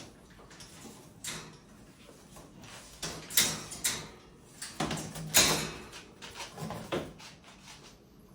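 A few short knocks, rattles and scrapes of a door or latch being worked, the loudest about three and five seconds in.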